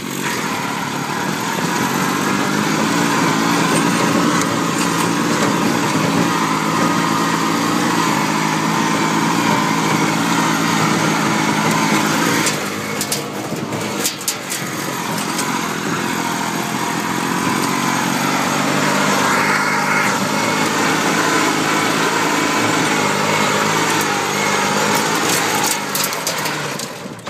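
Kubota B6200D compact tractor's diesel engine running steadily under load while pulling a trailer uphill over ploughed ground. There is a brief clatter of rattles about halfway through.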